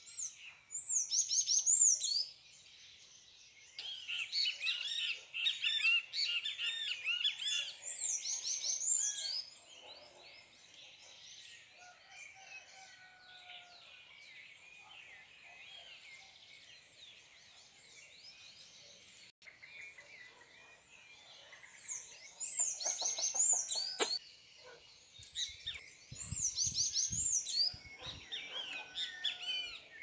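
Small songbirds chirping and trilling, several at once, in busy spells near the start and again near the end, with softer scattered calls between.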